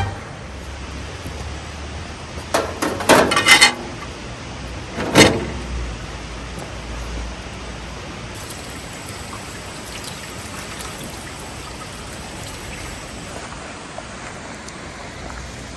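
Steady rush of river water flowing, with a quick cluster of short knocks and clatters about three seconds in and one louder knock about five seconds in.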